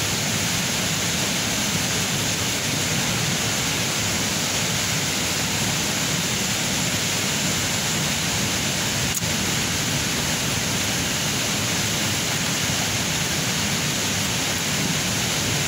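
Steady rushing of a river and its waterfall, an even hiss of flowing water.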